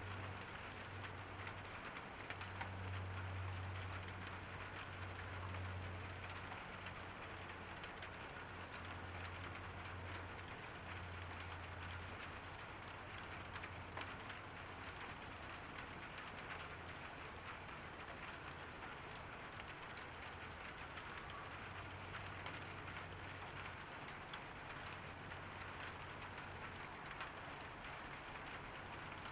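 Rain falling steadily, an even patter of many small drops. A low hum comes and goes underneath.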